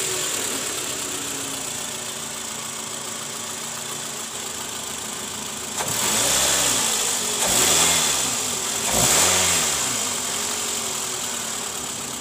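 Toyota Camry's 2AZ-FE 2.4-litre four-cylinder engine idling, then revved three times in quick succession from about six seconds in. It runs smooth and normal, without the rough growl under throttle, now that its worn balancer shaft has been replaced.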